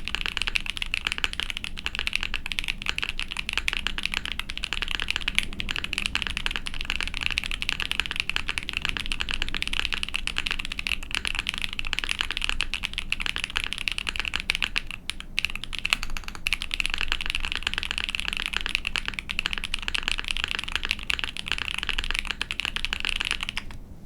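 Fast, continuous typing on an Ai03 Vega mechanical keyboard with a POM plate, lubed and filmed Cotton Candy Boba tactile frankenswitches and GMK keycaps: a dense run of keystroke clacks that stops near the end.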